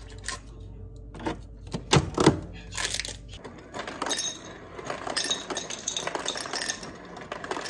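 Foil-wrapped coffee capsules clicking and rustling as they are handled, with a couple of sharp knocks about two seconds in. From about three and a half seconds, ice cubes from a refrigerator's ice dispenser clatter and clink into a glass in a dense run.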